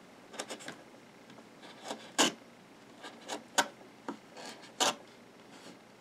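Leatherman Free T4 multi-tool knife blade cutting small pieces off thin cord against a board: about a dozen short, sharp cutting snicks, the loudest about two seconds in.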